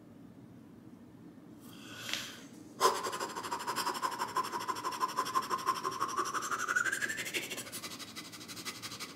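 A singer's breath-support exercise: a quick breath in about two seconds in, then a long, steady exhale blown out through pursed lips with a whistly tone. The tone rises slightly and tapers off near the end.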